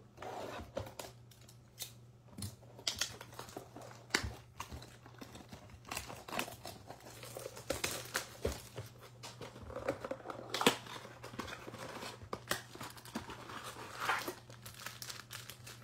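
A Bowman baseball card box being torn open and handled: crinkling and tearing of its wrap and cardboard, with scattered clicks, scrapes and taps, one sharper snap about ten seconds in.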